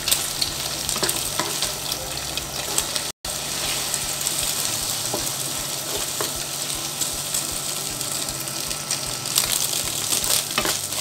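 Eggs frying and sizzling in hot oil in a wok while a wooden spatula scrambles them, scraping and tapping the pan now and then. The sound cuts out for an instant about three seconds in.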